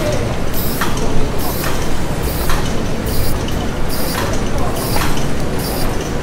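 Factory machinery running with a steady, regular clank a little faster than once a second over a constant low rumble.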